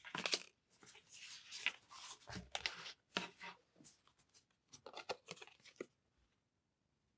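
Tarot cards being handled: a run of short papery rubs and scrapes as cards slide against each other and across the deck, stopping about six seconds in.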